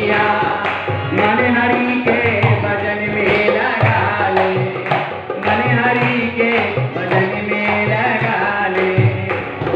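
Harmonium and dholak playing a devotional bhajan, the dholak beating a steady rhythm under the harmonium's held reedy tones.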